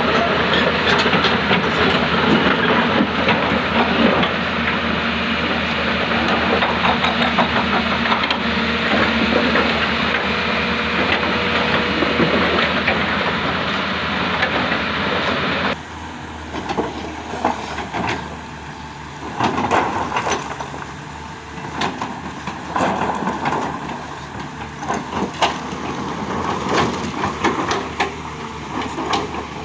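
Diesel hydraulic excavators working loud and steady. About halfway through the level drops suddenly, leaving a quieter engine with uneven surges and scattered knocks and clatter.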